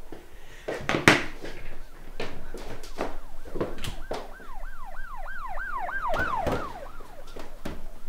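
Several sharp knocks and clatters of hurried handling, then a siren wailing quickly up and down, about three cycles a second, for some three seconds before it fades.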